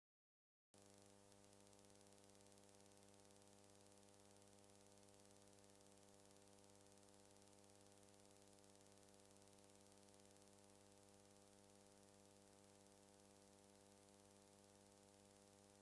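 Near silence: a faint, steady electrical hum with hiss, cutting in under a second in after dead silence.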